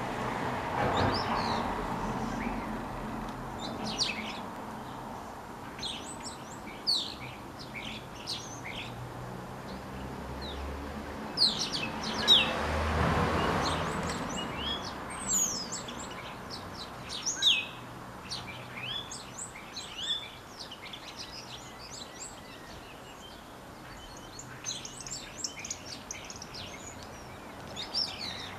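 Common starling singing and calling: a rambling mix of short high whistles, clicks and sliding notes, in clusters with short gaps. A low background rush swells about a second in and again around twelve to fourteen seconds.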